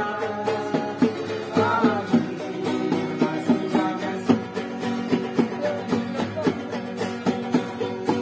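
Several acoustic guitars strummed together in a steady rhythm, with a voice singing over them in places.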